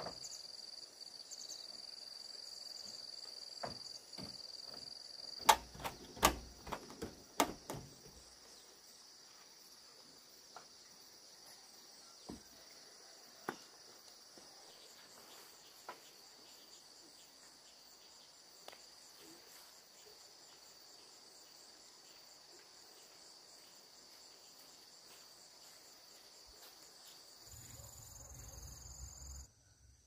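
Insects chirping in a steady high drone, with a quick run of sharp knocks about five to eight seconds in and a few single clicks later on.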